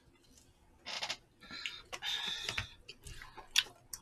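Noodles of spicy seafood noodle soup slurped from chopsticks in several short sucking bursts, with a few small clicks between them.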